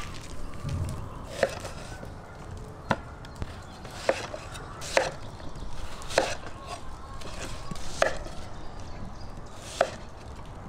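Kitchen knife cutting onions into wedges on a wooden cutting board: sharp knocks of the blade striking the board, about seven of them at uneven gaps of one to two seconds.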